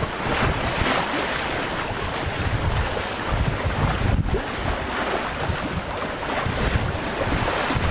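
Wind on the microphone and waves and water rushing past a sailboat's hull under sail: a steady hiss with an uneven low rumble.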